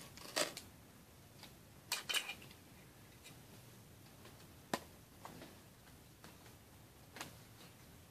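Scattered small clicks and light clatters of small hard objects being handled close to the microphone, a handful of separate knocks with the loudest about two seconds in.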